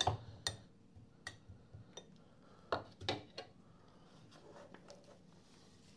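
Metal spoon pressing biscuit crumbs into a glass dessert coupe: a few light clinks and taps of spoon against glass in the first half, the loudest about three seconds in.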